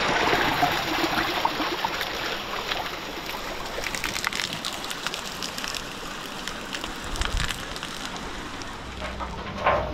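Rainwater rushing and gurgling down an open concrete channel, with rain falling; the rush is loudest at first.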